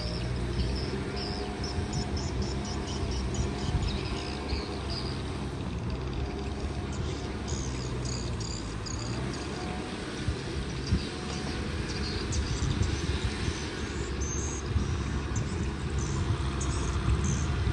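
Kubota M6040 tractor's four-cylinder diesel engine running steadily at work, with high, repeated chirping over it.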